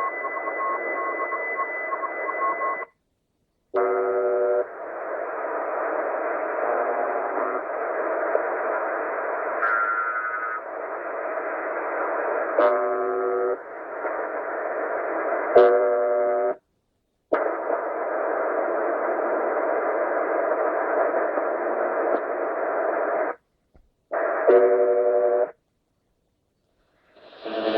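Tecsun PL-990 shortwave receiver in single-sideband mode giving steady band static. For the first three seconds a high steady whistle and a faint on-off keyed tone sit in the static, and after that come several short snatches of garbled, pitched sideband audio. The audio cuts out completely four times, for about half a second to a second and a half each.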